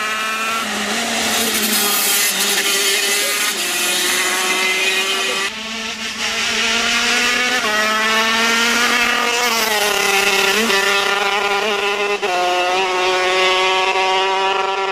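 KZ125 shifter kart's 125 cc single-cylinder two-stroke engine at high revs, its note climbing in pitch and dropping back at each gear change, several times over.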